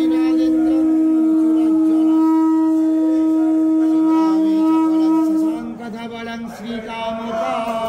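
Conch shell (shankha) blown in one long, steady note lasting about six seconds, sounded during the aarti; near the end a softer, lower held tone follows.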